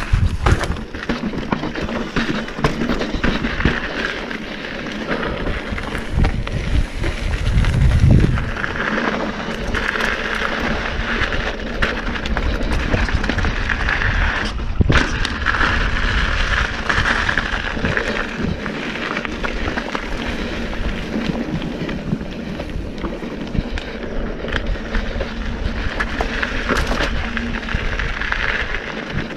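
Mountain bike being ridden fast down rocky dirt singletrack: tyres rolling and crunching over dirt and rock, with the bike rattling and knocking over bumps throughout. Wind noise rumbles on the microphone, loudest about eight seconds in.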